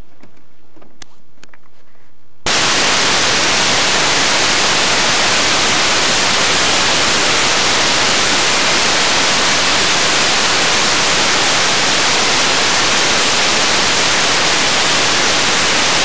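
Loud, steady static hiss from an analog 5.8 GHz FPV video receiver that has lost the transmitter's signal, cutting in suddenly about two and a half seconds in. Before it, a few faint clicks come over the onboard microphone.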